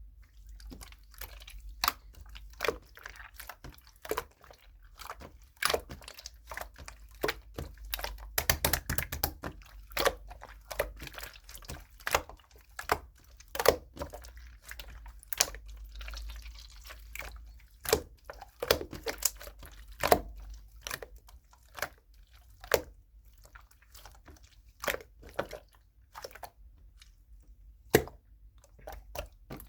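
Slime being worked by hand: irregular sharp clicks and pops with wet squishing, coming thickest about eight to ten seconds in and again near the twenty-second mark.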